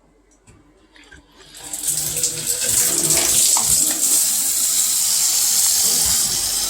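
Delta faucet turned on about a second and a half in, water running steadily from the tap to rinse a vacuum's washable filter.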